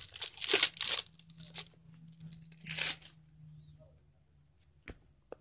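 Pokémon card packaging being torn open by hand: a burst of tearing and crinkling in the first second, another near three seconds, then two faint clicks near the end.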